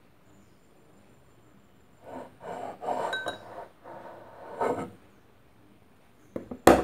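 Kitchen knife cutting and trimming the edges of rolled, layered pastry dough against a wooden board: a few short scraping strokes about two to five seconds in, then a single sharp knock near the end.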